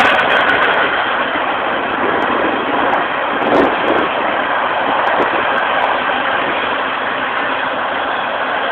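Loaded potash freight train passing close by: a steady noise of wheels rolling on the rails, with a single knock about three and a half seconds in.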